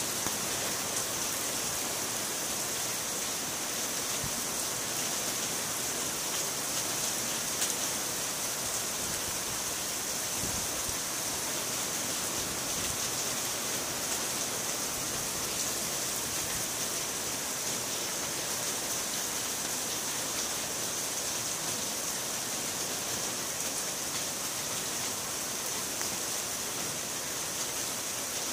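Heavy typhoon rain pouring down in a steady, unbroken hiss.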